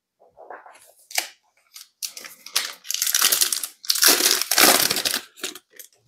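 Wrapper of a Prizm basketball card pack being torn open and crinkled by hand: a run of crackling rustles, loudest in the middle.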